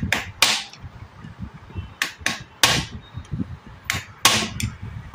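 Sharp metallic knocks on a spanner, about eight strikes in groups of two or three, driving a nut tight on an industrial sewing machine head.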